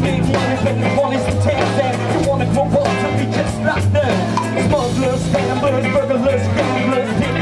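Live band music: drums, electric guitar and saxophone with a steady beat, and vocals over them.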